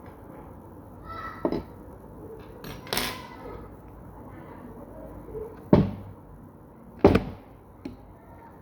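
Several separate knocks or thumps a second or two apart, with a short rushing noise between the first two.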